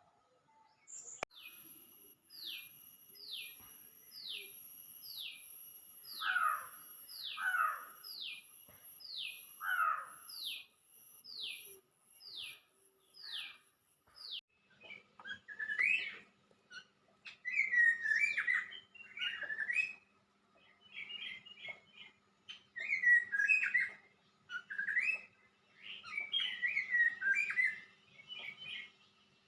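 Birdsong: a bird repeating a high, descending whistled note about once every second or less, with a few lower, louder downslurred calls mixed in. About halfway through it gives way to a different, warbling and chattering song in short phrases.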